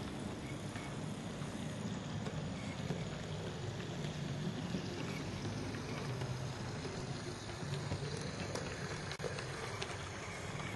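Model electric trains running on a layout: a steady motor hum and rumble of wheels on the track, with a few faint clicks.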